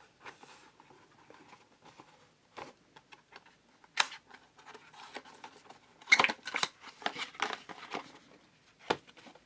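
Packaging of a boxed HDMI cable being opened and handled: scattered rustles and clicks in short irregular bursts, with a sharp snap about four seconds in and a busier stretch of handling around six to seven seconds.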